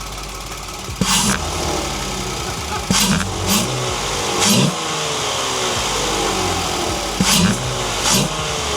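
Volkswagen Atlas engine revved in about six sharp throttle blips, each with a rush of intake noise, the revs falling away between blips.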